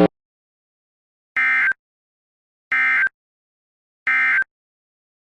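Three short, identical bursts of Emergency Alert System SAME digital data tones, about 1.4 s apart, with silence between them: the End of Message (EOM) signal that closes an EAS alert.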